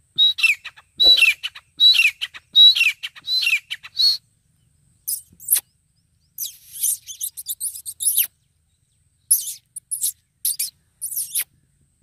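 Grey francolin calling: a run of loud, high notes, each falling in pitch, about one every three-quarters of a second for the first four seconds. After a short pause come harsher, scratchier bursts of high calls.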